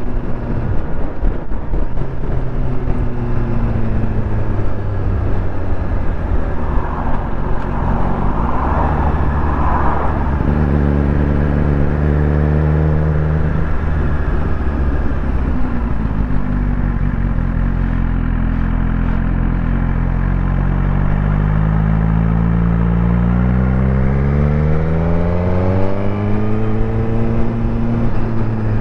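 Suzuki GSX-R1000's inline-four engine under way, with wind and road rush. The engine note holds, drops and stays low for a few seconds around the middle, then climbs steadily for several seconds near the end as the bike accelerates.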